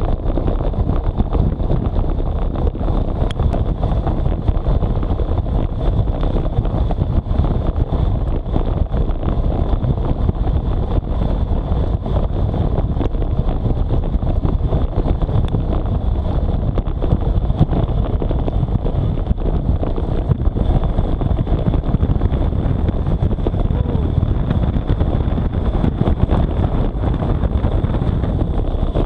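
Steady wind buffeting on the microphone of a handlebar-mounted action camera on a road bike moving at about 55 km/h, with the hiss of bicycle tyres on a wet road.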